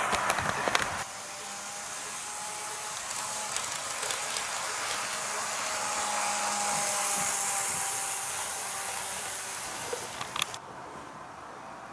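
HO-gauge KiHa 58-series model diesel railcar train running on sectional track: a steady motor whir and wheel hiss that grows louder and then fades as the train passes, with a few light clicks over the rail joints.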